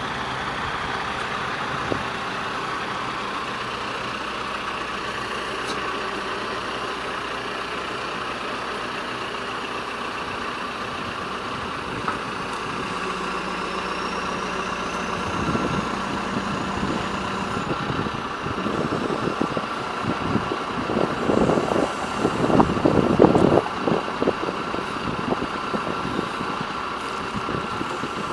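John Deere 310J backhoe loader's four-cylinder diesel engine running steadily. About halfway through, a louder, uneven noise comes in for several seconds, then the steady running returns.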